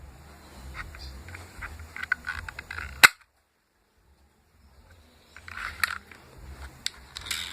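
Homemade PVC toy pistol firing once with a single sharp crack about three seconds in, among small clicks and knocks of it being handled and loaded.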